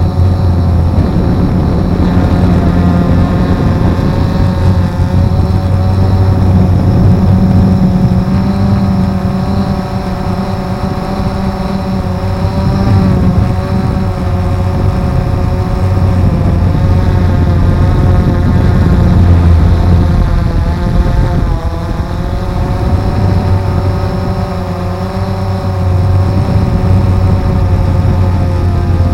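Drone's electric motors and propellers humming steadily, heard from a camera mounted on the drone, the pitch wavering slightly as the motors adjust to hold position.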